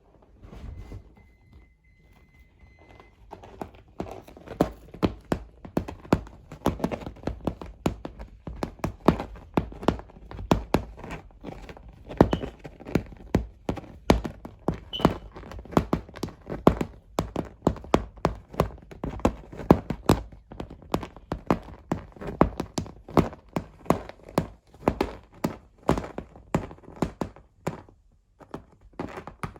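A long run of irregular knocks or thuds, about two a second, starting a few seconds in.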